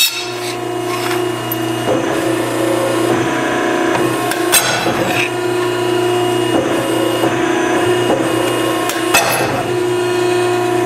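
Ironworker's motor running with a steady hum, while a steel plate is slid and positioned on its punch table. Two sharp metallic clicks come about four and a half seconds in and about nine seconds in.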